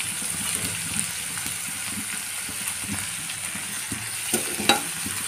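Chopped onion, green chilli, carrot, curry leaves and mint sizzling in hot oil in a steel kadai as they are stirred, a steady frying hiss. A few sharp clicks of the spatula against the pan come near the end.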